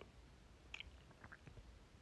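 Near silence: room tone with a few faint clicks about halfway through.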